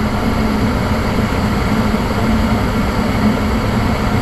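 Gas furnace running just after ignition: a steady rushing noise from the lit burners and the draft inducer motor, with a low steady hum. The burners are holding flame and the circulation blower has not yet started.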